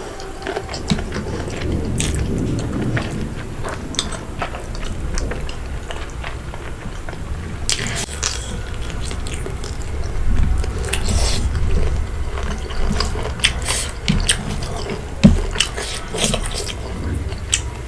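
Close-miked chewing and wet mouth sounds of someone eating pork curry with rice, with many small scattered clicks and smacks.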